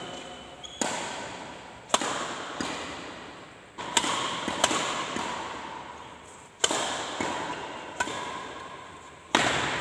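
Badminton rackets striking a shuttlecock in a rally, a sharp hit roughly every second, each one echoing and fading slowly in a large bare hall.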